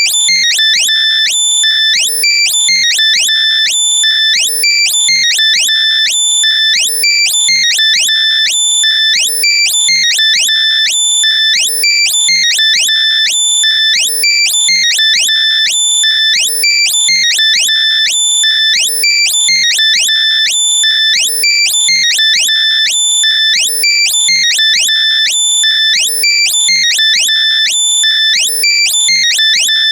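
Loud, compressed synthesized alert tones for finding lost earbuds: high piercing beeps with quick rising chirps, looping in a pattern that repeats about every two seconds.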